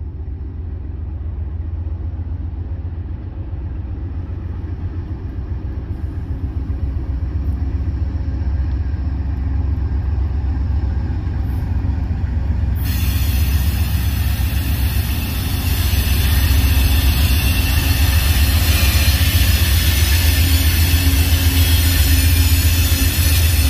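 Amtrak passenger train led by a GE P42DC diesel locomotive approaching at low speed: a deep engine rumble that grows steadily louder, with a hiss coming in suddenly about halfway through as the locomotive draws near.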